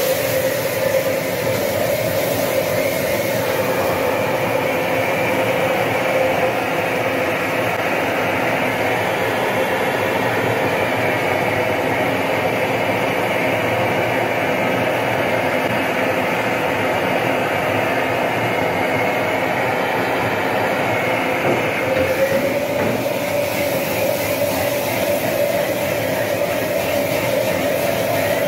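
Steady rushing noise of a high-output gas wok burner at full flame, with a faint steady hum in it.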